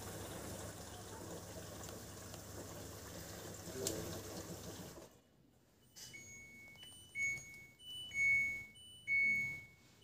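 LG D1450LF1 dishwasher running with a steady hum and sound of water, which stops about five seconds in. About a second later its control panel starts beeping, a short higher tone followed by a longer lower one, repeating roughly once a second and growing louder: the alarm for its 1E error, a water-supply fault.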